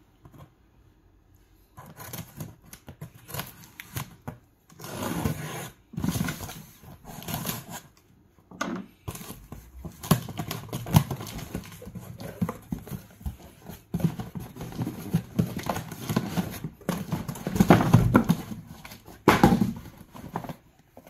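A cardboard shipping box being opened by hand: a knife slitting the packing tape, the tape worked loose, and cardboard flaps scraping and rustling as a shoebox is taken out. The sounds come in irregular bursts.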